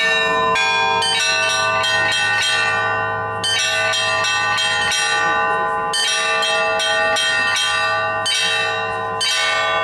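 Russian Orthodox church bells being rung: quick patterns of strokes on the small bells over the sustained ringing of the larger ones. Heavier strokes fall every couple of seconds and ring on.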